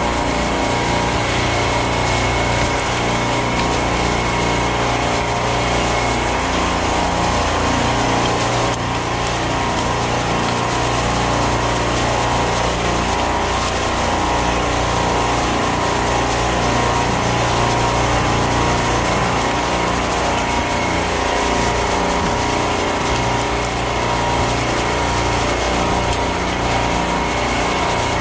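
Supermarket refrigeration compressor rack running: a loud, steady machine drone with a constant low hum, loud enough to drown out a voice.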